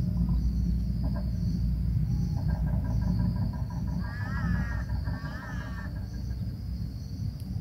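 Steady high-pitched insect trilling over a low rumble, with a faint run of wavering pitched calls from about two and a half to six seconds in.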